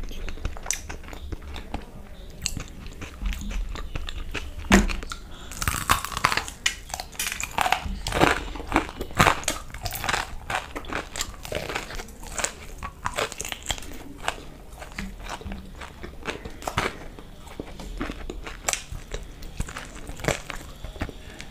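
Close-miked biting and chewing of a fried chicken lollipop: a steady run of sharp, wet mouth clicks, thickest about a third of the way in.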